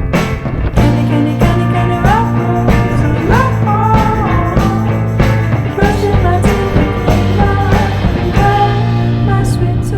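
Background music: a rock song with a steady drum beat.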